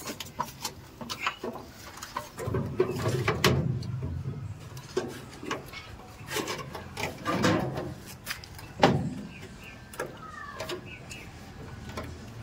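Handling noise from stiff insulated cables being pushed through a cable gland into a plastic meter box: a run of irregular clicks, knocks and rubbing, with one sharper knock about nine seconds in, over a low background rumble.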